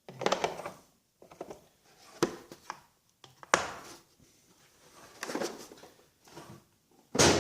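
Tools and their cases being handled: a string of clicks, light knocks and scraping rustles, with two sharp clicks in the middle and louder clatter starting near the end.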